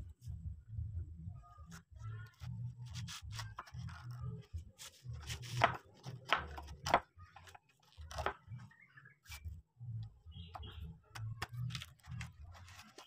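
Wood chisel worked by hand in a drilled-out mortise, paring and prying chips loose: irregular scraping, clicking and cracking of wood, with two sharper cracks about six and seven seconds in.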